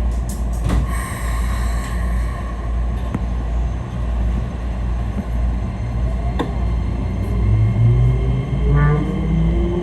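Keikyu 1000-series train with Toyo IGBT-VVVF traction inverter, heard from inside the car: steady running rumble with a few clicks. From about seven seconds in, several motor tones rise together in pitch as the train accelerates, with a loud low drone stepping upward. That drone is the abnormal noise this car made on starting and stopping, a fault that was later removed at inspection.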